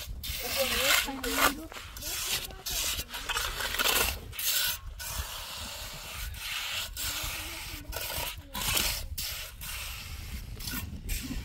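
Steel trowel scraping and spreading cement mortar along the top of a row of concrete blocks, in repeated rough strokes with short pauses between them.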